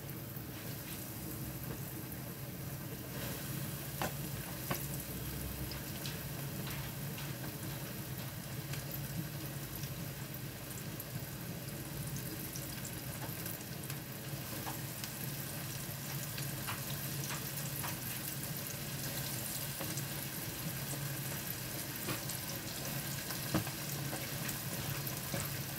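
Floured chicken pieces deep-frying in hot oil in a wok: a steady sizzle with a few faint clicks.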